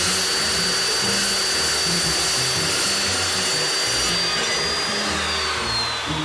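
Evolution S355CPSL 14-inch carbide-tipped metal-cutting chop saw running loud and steady with a high whine, cutting through steel stock at a 45-degree angle. About four seconds in the whine lifts slightly, then it falls away as the blade winds down.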